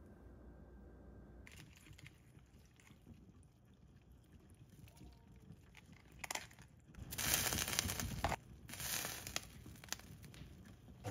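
Pot of fish cake soup simmering, with two loud rustling, splashing bursts a little past halfway as konjac noodles go into the broth.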